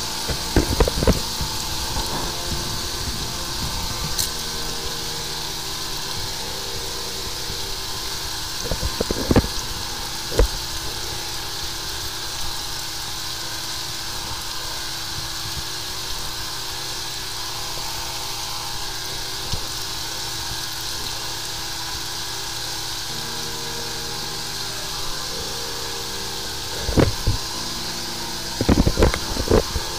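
High-pressure sewer jetter running steadily, its engine-driven pump going under a continuous hiss as the jetting hose works inside the drain. A few short knocks come about nine seconds in and again near the end.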